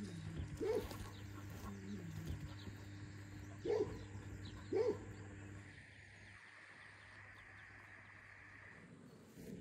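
A dog barks three times in short single barks, about a second in and then twice around four and five seconds in, over a low steady hum.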